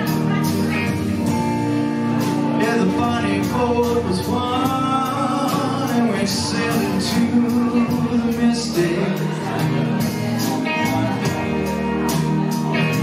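Live band playing a slow, gentle song with a male lead vocal, hi-hat and ride cymbal ticking steadily over the sustained band.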